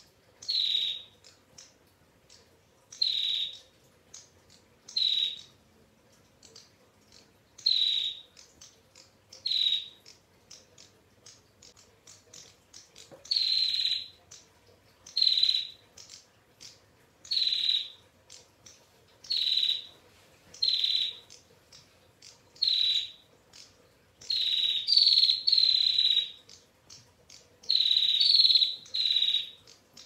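Female prinia (prenjak) giving its rapid 'ngetir' trilling call, the female's call that draws males. It comes in short high bursts about every two seconds, with longer runs close together near the end.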